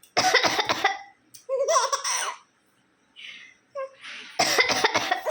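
Someone coughing and a baby laughing in reply, in turns, in several short loud bursts.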